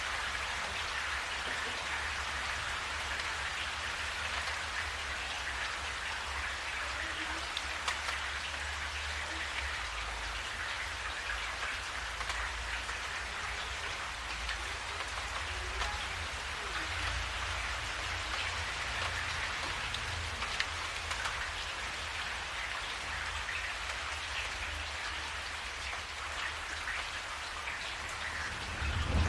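Steady rain falling, with a constant hiss and scattered individual drops, over a low rumble.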